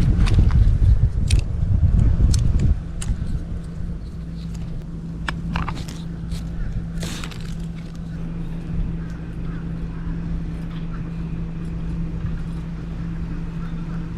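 Metal clinks of a bungee cord's hook and a steel stake being clipped together, over a steady low hum. A loud low rumble fills the first three seconds or so.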